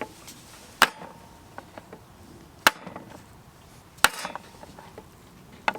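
Sharp knocks and light taps as a freshly baked bread pudding is knocked and prised out of its baking tin, the three loudest about one, two and a half and four seconds in.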